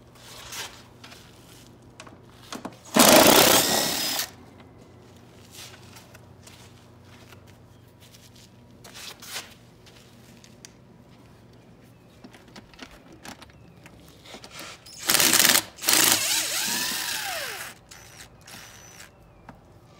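Cordless drill-driver with a socket spinning bolts out of an outboard motor's cowling panel: two bursts, a short one about three seconds in and a longer one near the end that winds down in pitch.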